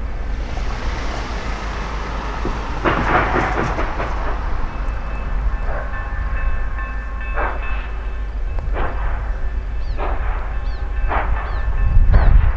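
Steam locomotive getting under way: a hiss of steam, then exhaust chuffs about every second or so, coming slightly faster toward the end, over a low rumble.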